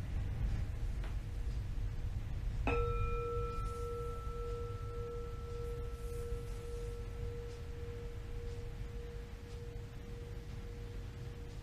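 A metal singing bowl is struck once about three seconds in and rings on. A low tone pulses slowly and is still sounding at the end, while a higher overtone fades away over several seconds.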